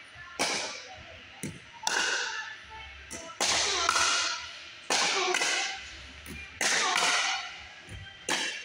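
Pickleball paddles striking a hard plastic ball in a rally: a sharp pop about every second and a half, each ringing out in the gymnasium's echo.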